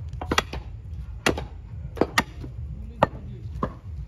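A heavy butcher's cleaver chopping beef on a thick round wooden chopping block: about seven sharp, irregularly spaced strikes, two of them in quick succession near the start.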